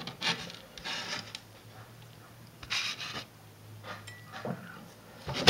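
A person breathing close to the microphone: a few short, noisy breaths spaced irregularly, over a low steady hum.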